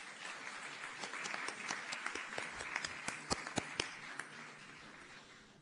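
Audience applauding, a dense patter of many hands with a few sharper individual claps, dying down near the end.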